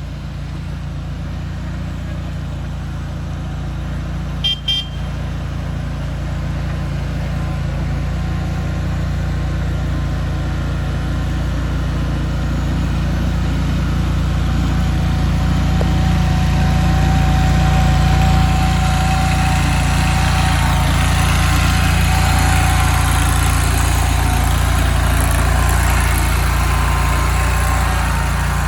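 Vorx NL380 mini skid steer's 23 hp RATO V-twin engine running steadily, growing louder over the first half. Two short beeps come about four seconds in.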